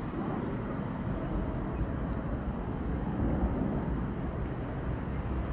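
Steady low rumble of distant vehicle noise, with no train passing. A few faint high chirps come between about one and three seconds in.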